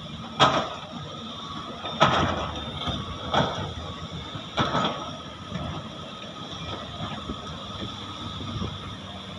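Several excavators' diesel engines running steadily, with a faint whine held under them. Four loud bangs in the first five seconds come from steel buckets striking and dumping nickel ore.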